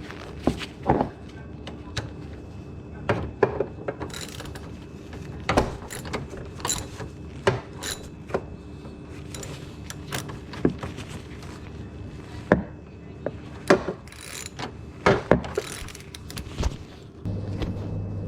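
Irregular clicks and knocks of a 3/8 socket wrench working a refrigerator's leveling-leg screw, over a steady hum. A low steady hum sets in near the end.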